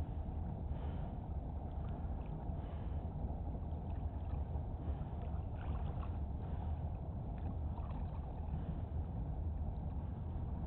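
Steady outdoor ambience of wind rumbling on the microphone and small waves lapping at a pebbly shore, with faint light splashes scattered through.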